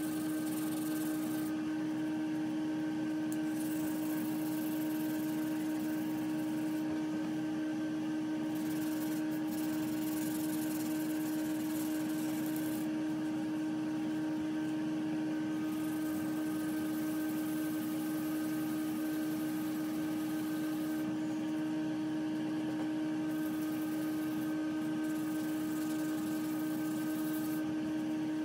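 A steady mechanical hum with one strong low tone and fainter higher tones, unchanging throughout.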